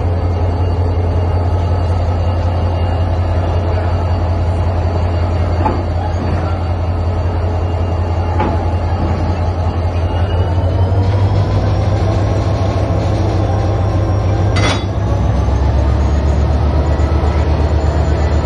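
Diesel locomotive engine running with a steady low drone, its note rising a little about ten seconds in as the locomotive creeps up to the passenger coach. About fifteen seconds in there is a single sharp clank as its coupler strikes and engages the coach's coupler.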